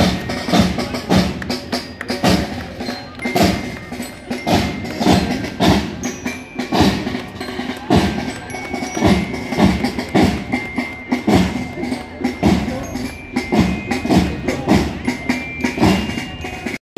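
Marching band drums beating a steady march of about two strokes a second, with high bell-like notes ringing above them.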